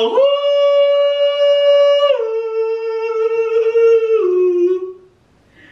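A man singing one long held note, stepping down in pitch about two seconds in and again near four seconds, then trailing off shortly before the end.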